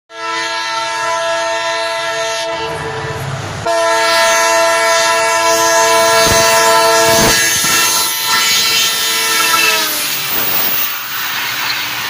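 EMD diesel locomotive's horn honking in two long blasts, with a short break about three seconds in. The horn's pitch drops as the locomotive passes close by, near ten seconds in. It then gives way to the rumble and clatter of the coaches running past at speed.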